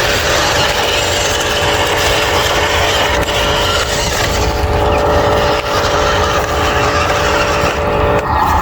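Radio-controlled construction machinery running: a steady mechanical whine over a constant rushing noise. About eight seconds in, the whine shifts to a higher pitch.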